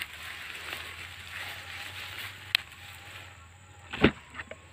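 Rustling and crackling of sweet potato vines and dry roots being handled, with a sharp click past halfway and a louder snap about four seconds in.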